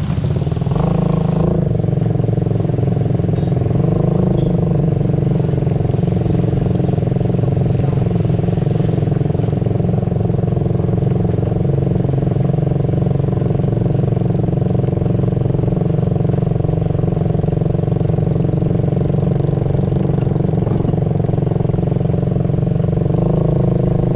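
A vehicle engine running steadily at a constant pitch.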